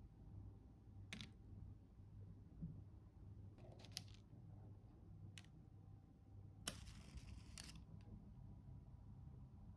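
Faint, sharp clicks of wooden chopsticks handling a soft melted white chocolate cheesecake, three or four in all, spread a second or more apart. About seven seconds in there is a brief one-second rustle. A low steady hum runs underneath.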